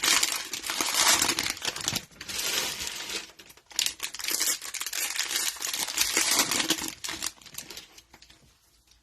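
Cellophane wrapper of a trading-card cello pack crinkling and tearing as it is opened, dying down about eight seconds in.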